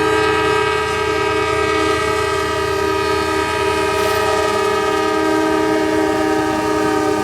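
Diesel freight locomotive's multi-chime air horn held in one long, steady chord. Under it runs the low rumble of the locomotive, which drops off about halfway through.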